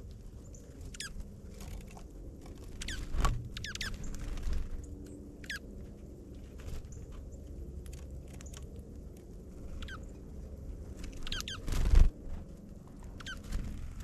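Small birds chirping in repeated clusters of short notes that slide downward, over a low steady rumble. Two loud thumps break in, one about three seconds in and a louder one near the end.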